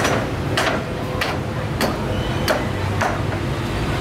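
Butcher's cleaver chopping beef on a block in a steady rhythm, six sharp strokes about 0.6 s apart, over a steady low market hum.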